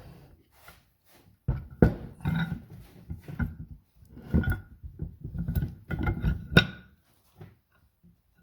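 Steel bench-vise parts clinking and knocking as the screw shaft is pushed through the collar into the vise body, with several sharp metallic knocks that ring briefly, the loudest about six and a half seconds in.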